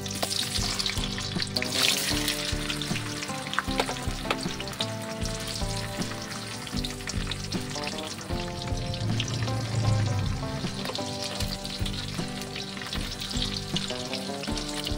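Sliced sausages sizzling and crackling in hot oil in a wok as they are dropped in and fried, with a spatula stirring them near the end.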